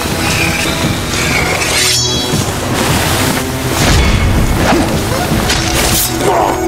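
Background music with fight sound effects: sudden crashing impacts, one about two seconds in and a cluster near the end, as a man is struck down.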